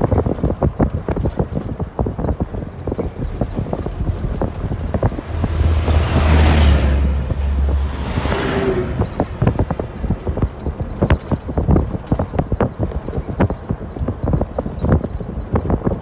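Car driving on a rough dirt road, with a constant stream of knocks, rattles and wind buffeting on the microphone. About five seconds in, a heavy dump truck passes close by: a deep engine rumble and a rush of noise that swells, peaks twice, and fades after about four seconds.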